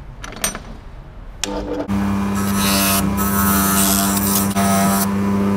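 Bench grinder with a wire brush wheel switched on about a second and a half in, its motor running with a steady hum. A rusty steel exhaust clamp is then held against the spinning wire wheel, giving a loud scratchy hiss for about two and a half seconds as the rust is scrubbed off.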